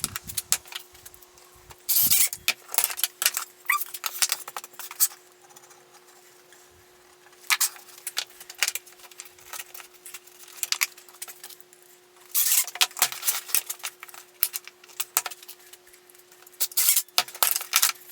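Spells of clattering, scraping and knocking as door-frame stiles and rails and a clamp are handled in a plywood assembly jig, about four spells a few seconds apart. A faint steady hum runs underneath.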